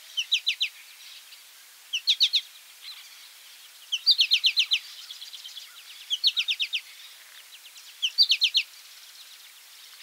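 American goldfinch calling: a short burst of quick, high, down-slurred notes, repeated about every two seconds, five times, over faint background hiss.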